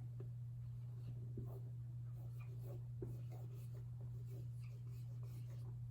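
Faint, irregular scratching strokes of handwriting as words are written out, over a steady low electrical hum.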